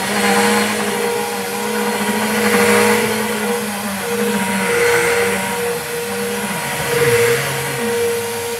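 Bissell PowerGroom Helix upright vacuum cleaner running with a steady motor hum and whine while pushed back and forth over a rug, its loudness swelling and easing with the strokes. It is being run without its filters in.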